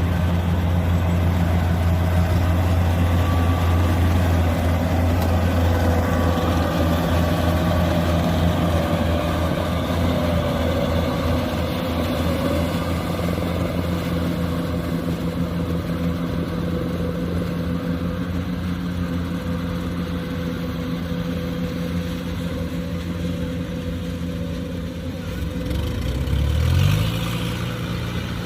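Kubota combine harvester's diesel engine running steadily under load with a low hum and mechanical clatter of the machinery. The engine pitch rises briefly near the end.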